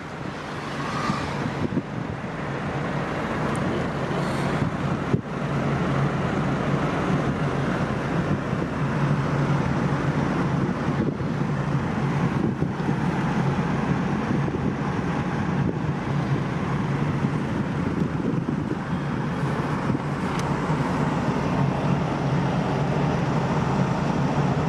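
Wind buffeting the microphone outdoors over a steady low rumble.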